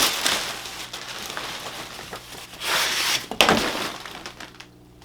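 Rustling of packaging as a camera backpack is unwrapped and handled, louder for a moment about three seconds in and ending in a sharp click, then dying away near the end.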